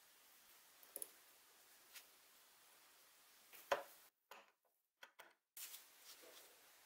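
A few light, sharp metallic clicks and taps as tweezers and a pointed tool work on a drill's metal gear-cover plate with its bronze bushings, the loudest a little under four seconds in. Near the end, a soft rustle of gloved hands handling a small part.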